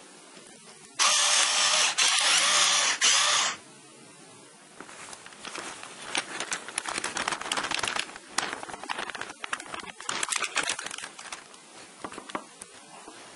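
A pepper mill grinding hard for about two and a half seconds, starting about a second in. Then a paper flour bag crinkling and hands patting and rubbing flour onto slices of raw pork in a ceramic dish, an uneven run of rustles and small taps.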